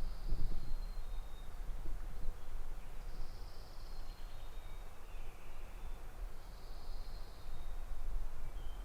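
A small songbird singing a short, high buzzy phrase three times, about every four seconds, with a few thin high notes between, over a steady low rumble.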